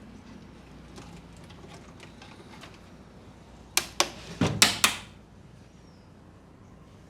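Masseur's hands striking during a head massage: a quick run of about five sharp slaps or claps within about a second, about four seconds in, after a few faint clicks.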